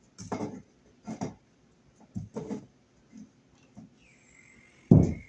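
Plastic wire nut creaking and squeaking as it is twisted tighter onto the copper wire splice with pliers, in short separate bursts about a second apart, with one louder knock near the end.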